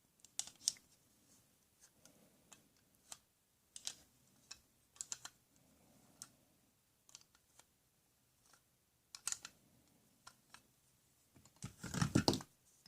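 Irregular clicks and taps of small hard objects being handled, with a louder clatter about a second before the end.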